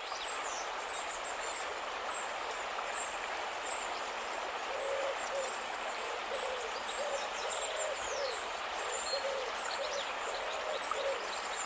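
Short hooting calls, repeated about twice a second and often in pairs, start about five seconds in over a steady outdoor hiss, with thin high chirps throughout.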